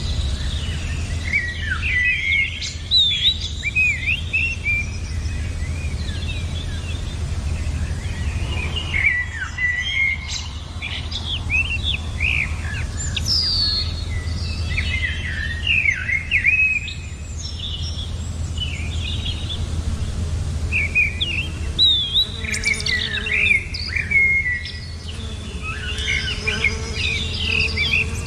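Many small birds chirping and twittering, their quick calls overlapping in bursts every few seconds, over a steady low hum.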